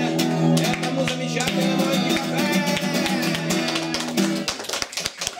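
Steel-string acoustic guitar strummed by hand, one chord struck again and again as the song ends, stopping about four and a half seconds in. A few hand claps follow.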